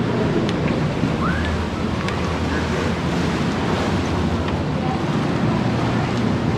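Wind buffeting the microphone and water rushing past the hull of a tour boat underway, with the boat's engine running steadily underneath.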